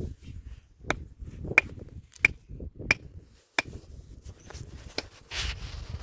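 Five sharp, evenly spaced strikes, about one and a half a second, each with a brief ring, followed near the end by a short rush of hissing noise.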